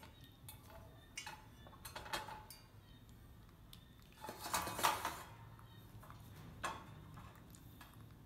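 Scattered light metallic clinks and clatter of a stainless steel bowl and wire cage being knocked by a baby monkey, a few separate knocks with a louder run of rattling about halfway through.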